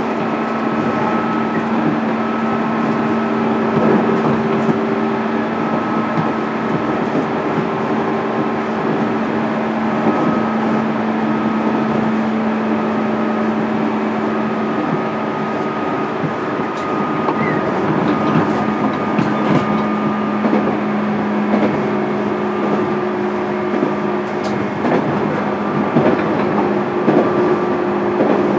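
Running sound inside a JR East 205-series electric motor car, heard at a steady speed: the MT61 traction motors and gearing whine at an even pitch over wheel and track noise.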